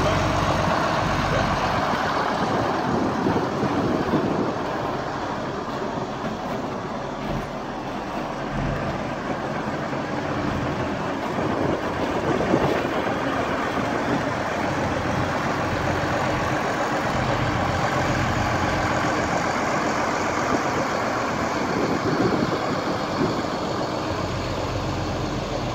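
International Harvester 4386 articulated four-wheel-drive tractor's diesel engine running steadily.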